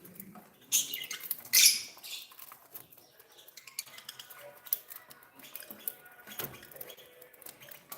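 Pet budgies chirping, with two short loud bursts in the first two seconds. Scattered small clinks and ticks follow, as of beaks and feet on a metal cage or dishes.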